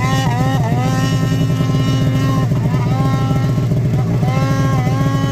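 Mountain snowmobile engine running under throttle, its pitch rising and falling as it is revved and eased off, over a steady low rumble.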